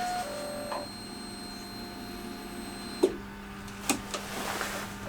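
Triumph Street Triple 675R motorcycle being switched on for a start attempt: a steady high electrical whine runs for about three seconds and stops with a click, then a second click and a brief whirr follow near the end. A steady low hum sits underneath.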